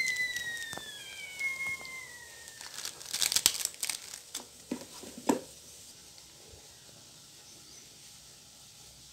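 Plastic instant-noodle seasoning sachets crinkling as they are torn open and squeezed into a bowl, in a cluster about three seconds in and a sharp crackle a little after five seconds. A high whistling tone slides down in pitch and fades out in the first two seconds.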